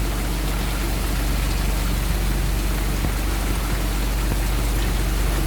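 Rain falling steadily, an even hiss that does not let up, over a low steady hum.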